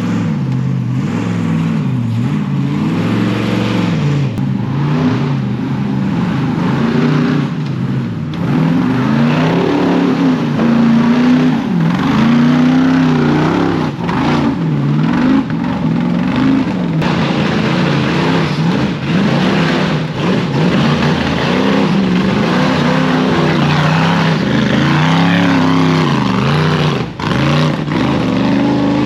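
Off-road race vehicle's engine revving up and down over and over, its pitch repeatedly climbing and dropping under changing throttle.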